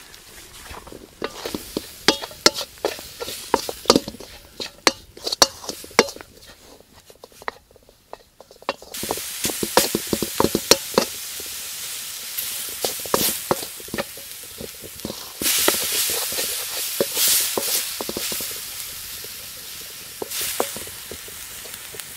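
Wooden spoon stirring and scraping ground beef in a wok, with sharp clacks against the pan. About nine seconds in, a steady sizzle starts as the meat dry-fries without oil or butter, and the stirring scrapes go on over it.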